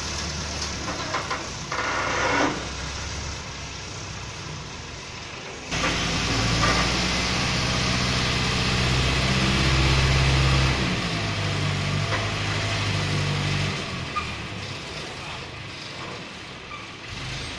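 Diesel engine of an excavator-type crane running, then revving up sharply about six seconds in and holding high for several seconds before dropping back toward a lower run.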